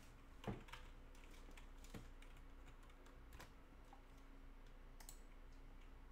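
A few faint, scattered clicks of a computer keyboard, a key or two every second or so, over a faint steady low hum.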